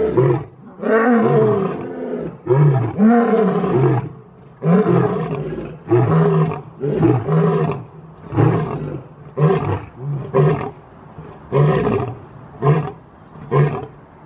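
Male lion roaring: a bout of long roars in the first half that shorten into a run of short grunting roars, about one a second, toward the end.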